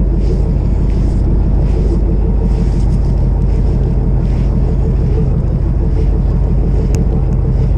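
Fishing boat's engine running with a steady low hum, under wind noise on the microphone.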